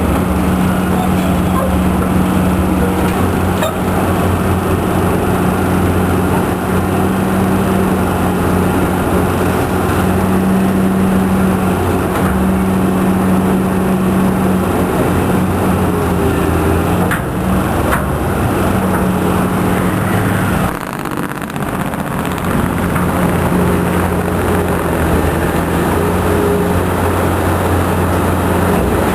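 Cat 330 excavator's diesel engine running steadily, with a brief dip in level about three-quarters of the way through.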